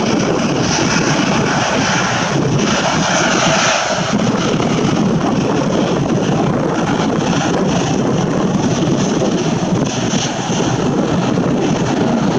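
Jet airliner taking off, its engines at takeoff power making a loud, steady noise.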